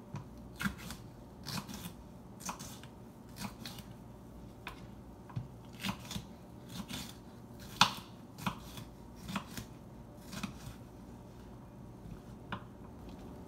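Kitchen knife slicing bell peppers on a wooden cutting board: short, sharp knocks of the blade meeting the board at an uneven pace of one or two a second, with one louder knock about eight seconds in.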